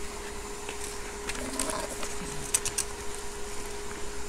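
A few light clicks and taps of metal chopsticks against a stainless steel pot and against each other as onion is added, over a steady hum.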